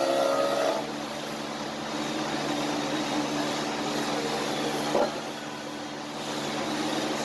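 Wood shaper (spindle moulder) motor running its bearing-guided profile cutter with a steady hum. It is louder for about the first second while the curved chair part is still against the cutter, then it runs unloaded. There is a single short click about five seconds in.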